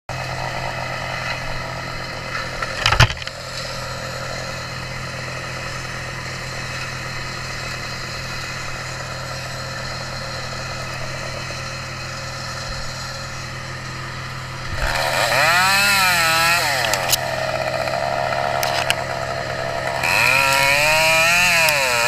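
A small engine runs steadily with one sharp knock about three seconds in. About two-thirds of the way through, a chainsaw revs up and down again and again as it cuts, its pitch rising and dropping under load.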